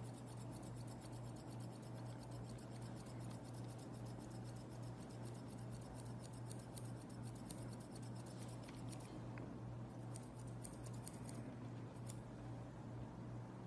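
Grooming scissors snipping a Pomeranian's fur in quick, light, repeated cuts, with a short break about nine seconds in before a few more snips. A faint steady low hum runs underneath.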